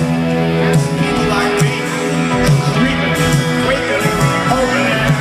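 Live rock band playing loudly, with guitars over drums that strike at a steady beat.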